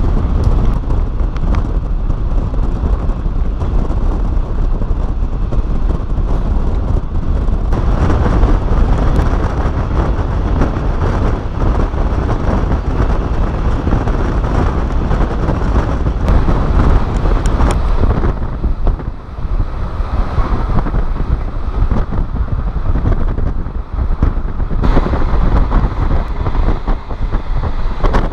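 Wind buffeting the microphone at the open window of a moving passenger train, over the train's low running rumble on the rails. It dips briefly twice in the second half.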